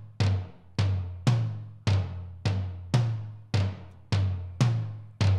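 Tom-toms played back through Slate Trigger's replacement samples: about ten even single strokes, roughly two a second, each a low, pitched drum hit that rings briefly and dies away before the next.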